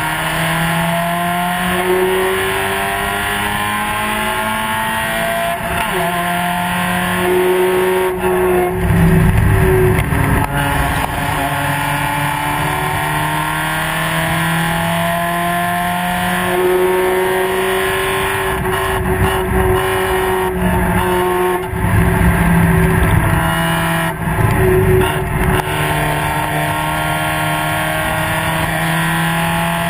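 Spec Miata race car's four-cylinder engine running hard on track, its pitch climbing in stretches and holding steady in others, with bursts of rough rumble over it from about eight seconds in.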